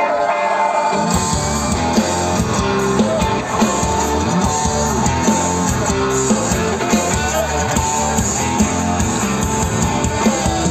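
Live rock band playing through a festival PA, heard from the crowd. Guitar leads at first, then a heavy low end and steady beat come in about a second in.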